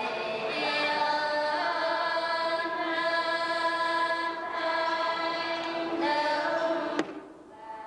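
Women's choir singing a slow hymn in long held notes. The singing cuts off suddenly about seven seconds in with a click.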